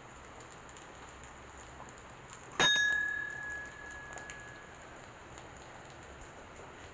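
A metal temple bell struck once about two and a half seconds in, ringing with a clear high tone that fades over about two seconds, over a faint steady hiss.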